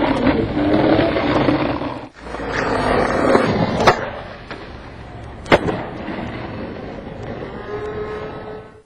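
Skateboard wheels rolling over pavement with a rumbling noise, broken by two sharp clacks of the board about four and five and a half seconds in.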